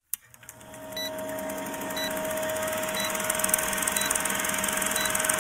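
Vintage film projector sound effect for a countdown leader: a click, then a steady hum and fine mechanical rattle, with a short high beep about once a second.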